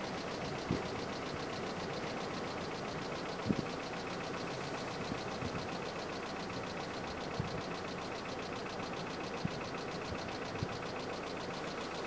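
Strong blizzard wind blowing with a steady rushing noise, broken by a few soft low thumps from gusts.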